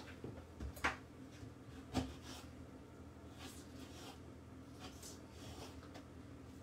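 Kitchen knife knocking twice on a wooden chopping board, about a second apart, followed by faint soft cutting sounds as a lime is sliced.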